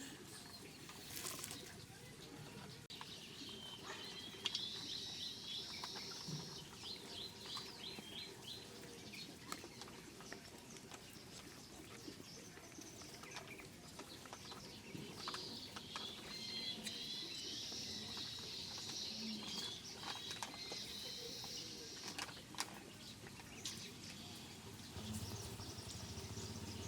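Birds chirping in repeated runs of short, high calls, faint over a quiet outdoor background.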